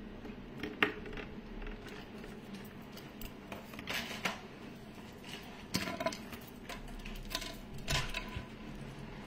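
Metal costume jewellery clinking and rattling as pendants and a gold-bead mala are handled: scattered short clicks and jingles, the sharpest about a second in and a few more in the second half.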